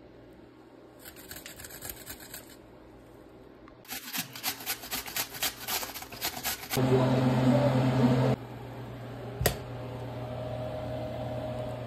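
Vegetables rubbed over a metal hand grater: two runs of rapid, rhythmic rasping strokes, the second louder. Then a loud steady hum for about a second and a half and a single sharp click.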